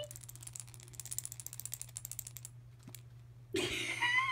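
A plush cat toy is handled, giving a rapid run of light clicks for about two and a half seconds, then a brief rustle with a short rising squeak near the end.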